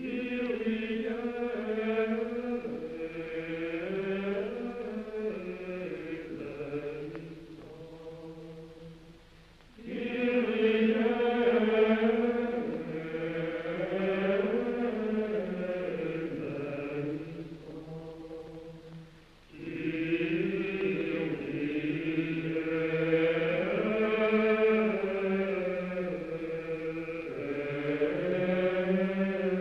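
Slow sung vocal chant: three long phrases, each about ten seconds, each starting suddenly and fading before a brief pause.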